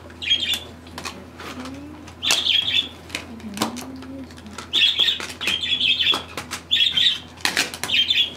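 Birds chirping loudly in repeated bursts of high chirps, with short sharp clicks between them.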